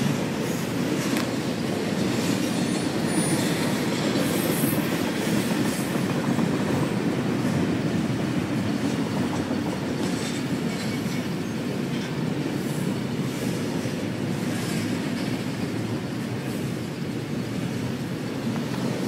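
Double-stack intermodal container cars of a freight train rolling past, a steady low rumble of steel wheels on the rails. Faint high-pitched wheel squeals come in a few seconds in.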